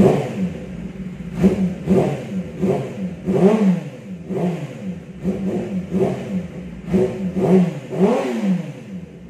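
Kawasaki ZX-10R's 998 cc inline-four idling and blipped over and over, each quick rev rising and falling back to idle, about one to two a second, through an aftermarket Two Brothers exhaust.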